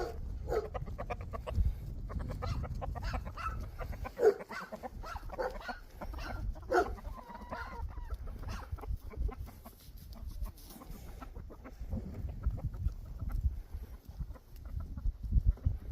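A flock of hens clucking, with many short clucks overlapping. A low rumbling noise runs under them for the first few seconds and again near the end.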